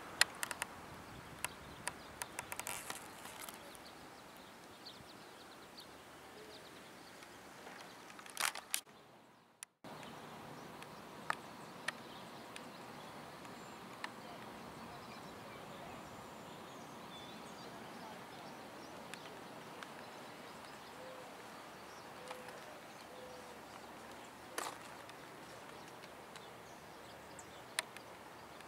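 Faint outdoor background noise with scattered sharp clicks and ticks. It drops out to silence for about a second, then resumes.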